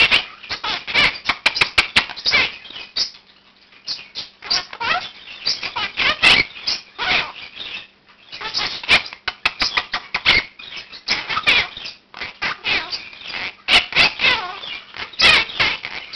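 Quaker (monk) parakeet chattering and squawking in a rapid stream of short, high calls, with a few brief pauses: its morning wake-up calling.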